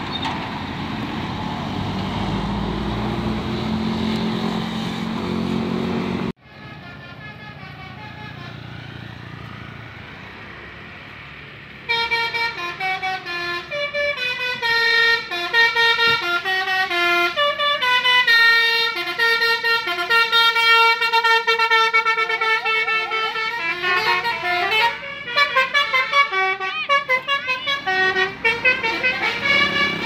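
Bus engine and road noise for the first six seconds. After a cut, from about twelve seconds in, a bus's multi-tone telolet basuri horn plays a long melody of clear, flute-like notes stepping up and down in pitch.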